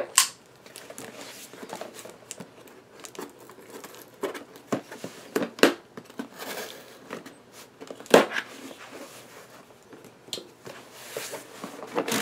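A cardboard subscription box being opened by hand: irregular rustling, crinkling and tearing of cardboard and paper, with a few sharp snaps.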